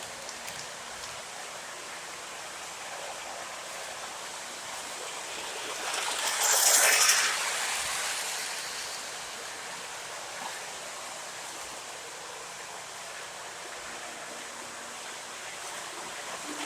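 O gauge model train running, a steady rushing noise, with a louder hiss lasting about a second, about six seconds in.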